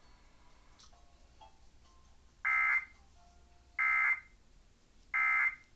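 Emergency Alert System end-of-message tones, heard through a TV speaker: three short, identical bursts of SAME digital data screech, a little over a second apart, signalling the end of the alert.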